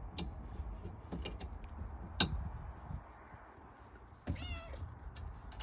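A young kitten gives one short, high meow near the end. Earlier there are a few sharp clicks, the loudest about two seconds in.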